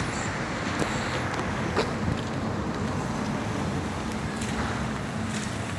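Steady city traffic noise: a low hum of road vehicles and engines, with a couple of faint clicks early in it.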